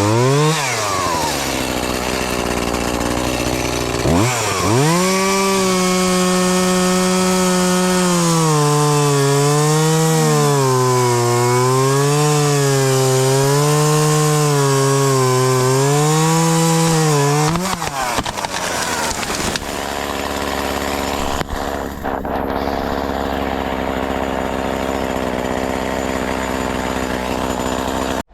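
Shindaiwa 280TS top-handle two-stroke chainsaw revving and cutting into wood: its pitch climbs sharply about four seconds in, then sags and recovers again and again as the chain bogs under load. About two-thirds of the way through the pitch drops away to a quieter, rougher run.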